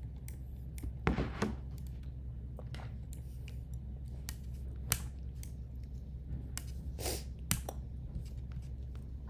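Steady low electrical hum with a scattering of small clicks and soft rustles, the sharpest about a second in, near five seconds and around seven seconds.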